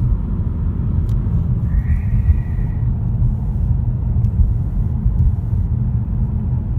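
Steady low hum and rumble of tyre and road noise inside a 2015 Ford Mustang's cabin while driving, which the owner suspects may be a bad wheel bearing. A faint high-pitched tone sounds briefly about two seconds in.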